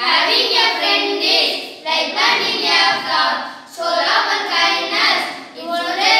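Four boys chanting a memorised English poem together in unison, in phrases of a second or two with short breaths between them.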